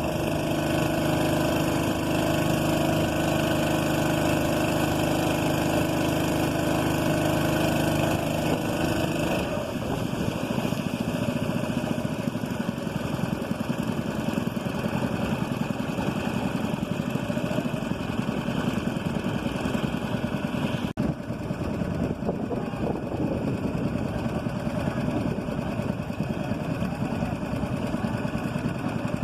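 A boat engine running steadily. For the first nine seconds or so it holds an even tone, then it turns rougher and noisier. There is a brief dropout about 21 seconds in.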